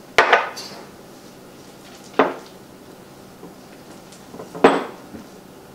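Three sharp clinks of glassware about two seconds apart, the first and last ringing briefly, as chocolate chips are tipped from a small glass dish and stirred into brownie batter in a glass mixing bowl with a silicone spatula.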